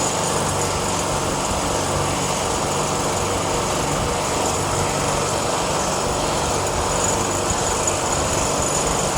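Commercial freezer condensing unit with a newly fitted 4 hp Copeland semi-hermetic compressor running steadily just after start-up: a constant hum with a broad hiss.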